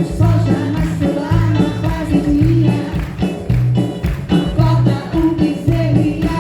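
Upbeat band music with a steady beat, a repeating bass line and a melody on top.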